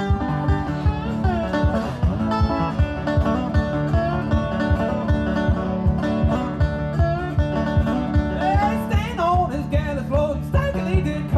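Resonator guitar fingerpicked in a country-blues style, with a steady thumbed bass beat under picked melody notes.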